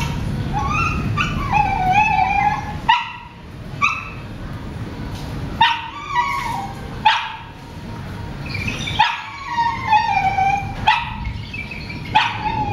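A dog barking and yelping over and over, short sharp calls about once a second, several drawn out into falling whines. A low steady noise underneath stops about three seconds in.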